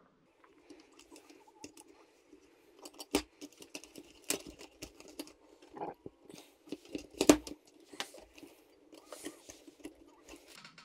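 Lionel 3656 cattle corral parts being handled: irregular small clicks and taps as the fence railing is pressed and worked into its base, with the loudest click a little past the middle.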